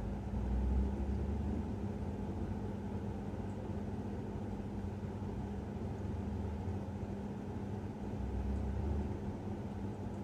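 Muffled city road traffic heard through a closed window: a steady low hum with a constant drone, and deeper rumbles of passing vehicles swelling about a second in and again near the end.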